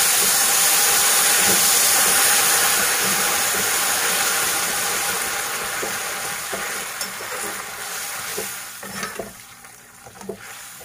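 Hot water poured into a kadhai of oil-roasted vermicelli, hitting the hot oil with a loud sizzle that dies away over the second half. A steel ladle stirs and knocks against the pan a few times near the end.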